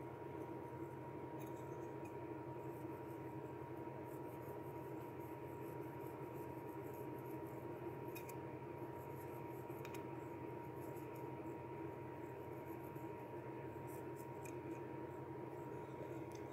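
Faint scratching of a marker tip colouring an art tile, in scattered strokes, over a steady low hum with a thin steady tone.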